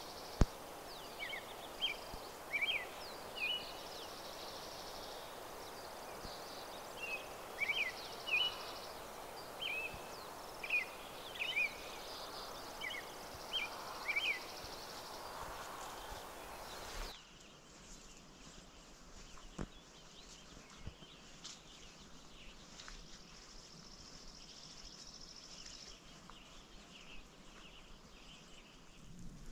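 Wild birds calling outdoors, short chirps that sweep up and down and repeat every second or so, over a steady rushing hiss. About seventeen seconds in the background suddenly drops to a quieter hush with fainter, more distant bird calls.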